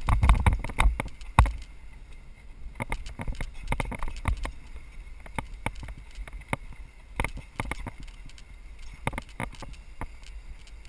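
Mountain bike rolling down a bumpy grass trail: irregular sharp knocks and rattles as the bike and helmet-mounted camera jolt over the ground, heaviest in the first second or so, over a steady low wind rumble on the microphone.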